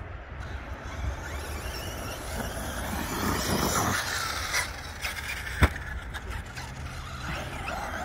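Arrma Kraton RC truck with a brushless motor driving over loose dirt: a steady hiss of motor and tyres, with a single sharp knock about five and a half seconds in.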